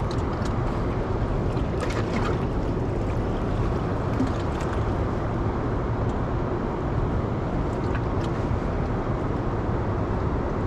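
Steady rushing noise of river current flowing below a dam spillway, with a few faint ticks.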